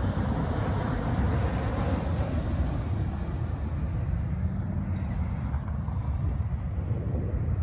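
CFM56 jet engines of a Boeing 737-600 on final approach, a steady rumble.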